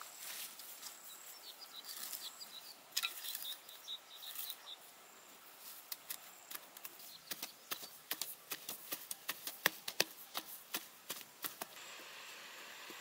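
Birds chirping over rustling steps through grass, then from about halfway in a run of sharp, irregular strikes, two or three a second, as digging tools are driven into the soil.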